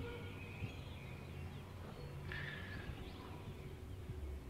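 Faint outdoor background of small birds chirping now and then, one brighter call a little past halfway, over a low steady rumble.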